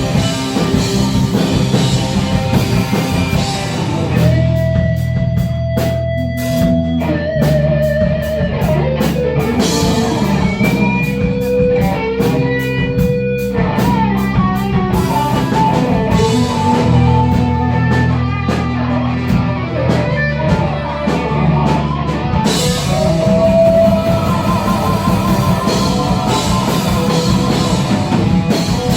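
A rock band playing: a guitar plays a melodic lead line with held and sliding notes over bass and a drum kit.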